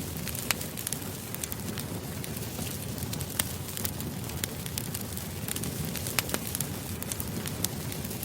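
Wood fire crackling steadily, with irregular sharp pops and snaps over a low rumble of burning.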